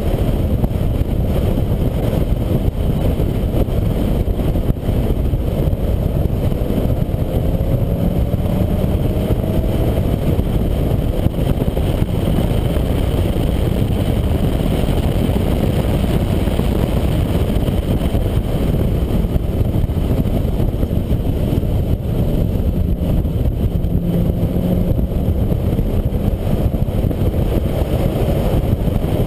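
Ford Mustang Bullitt's V8 engine and wind rush at track speed, heard from a camera mounted outside on the car's roof. The sound is a steady, loud low rumble, with a faint rising engine note several seconds in.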